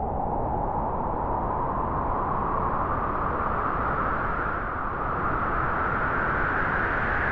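A steady rushing noise swell, like a synthesised wind or jet rush, that starts suddenly and slowly rises in pitch: an intro sound effect.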